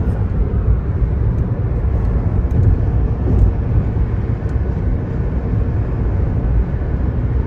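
Steady low rumble inside a car cabin at motorway speed: tyres on the road surface and the engine running at cruise.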